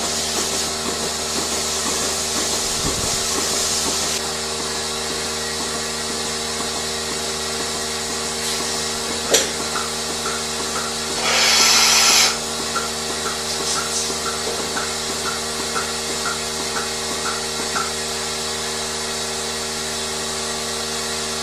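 Steady hum of barn machinery with several constant tones. A click comes about nine seconds in, then a loud burst of hissing air a little past halfway, and a run of short, evenly spaced chirps.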